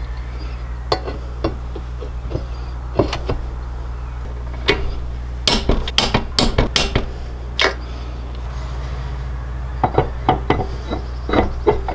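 Metal clicks and knocks of engine parts and hand tools during reassembly of a Predator 301cc engine, as the cylinder head is set on the block and its bolts are tightened with a long wrench. The clicks come irregularly, densest around the middle and again near the end, over a steady low hum.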